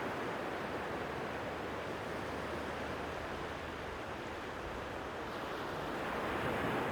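Sea waves washing on the shore in a steady wash that swells a little near the end.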